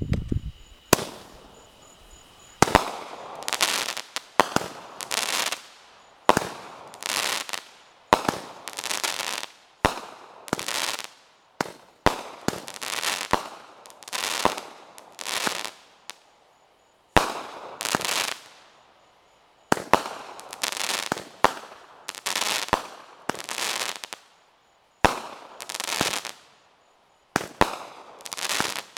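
Wildfire 16-shot firework cake firing its shots one after another, about one every one and a half to two seconds. Each shot is a sharp pop followed by about a second of hissing that fades.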